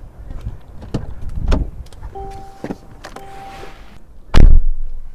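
Getting into a Mercedes-AMG GLE 63 S: clicks and handling noises as the door is opened and the driver climbs in, then a steady two-tone electronic chime that breaks off briefly and resumes. About four seconds in comes the loudest sound, the heavy solid thud of the door shutting.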